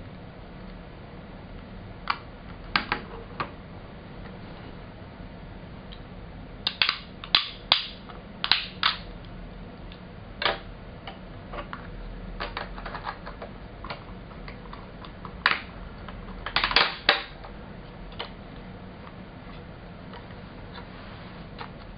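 Plastic clicks and knocks from a handheld illuminated magnifier and its folding stand being unfolded, clipped together and set down on a table. The clicks come irregularly, in a few clusters of several sharp snaps, the loudest bunches a third of the way in and about three quarters of the way through.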